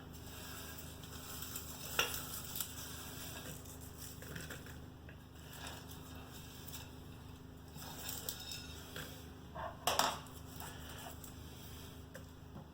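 Popped popcorn being pushed aside on a plate by hand: light rustling with a few sharp clicks of hard unpopped kernels against the plate, the clearest about 2 seconds in and a few more near the end.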